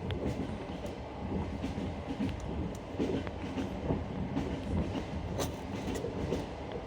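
Passenger train running on jointed rail track: a steady rumble of the wheels and carriage, with a few sharp clacks as the wheels cross the rail joints.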